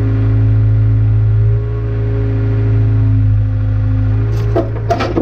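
Takeuchi TB153 mini excavator's diesel engine running steadily under hydraulic load, with a low hum and a steady drone. A few sharp knocks near the end, as the bucket and thumb work a rock in the stone wall.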